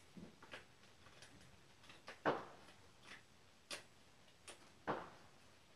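Light scattered clicks and taps of a small steel hatchet being fitted into a rigid heat-formed PVC sheath and handled, with two louder knocks about two seconds in and near the end.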